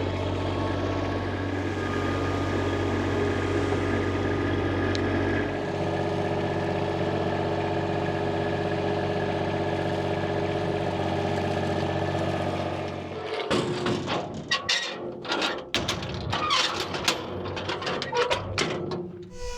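Skid steer engine running steadily, its note shifting slightly about five seconds in. It drops out about two-thirds of the way through, followed by a run of irregular knocks and clatter.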